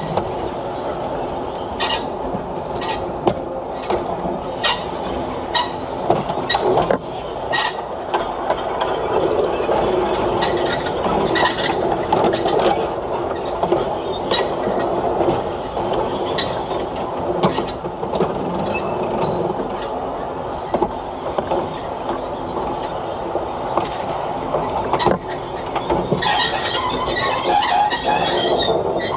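DP railcar running along the track, its wheels clicking over the rail joints about once a second over a steady rumble. Near the end a harsher high-pitched squeal of wheels on rail lasts about two seconds.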